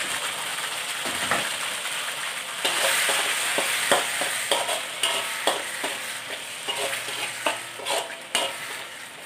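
Sambal paste sizzling in oil in a metal kadai while a steel spatula stirs it, scraping and tapping against the pan over and over.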